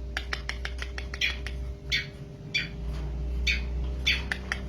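Long-tailed shrike singing: a quick run of short chirps and sharper clicking notes, with a few louder, longer notes about every half second to second.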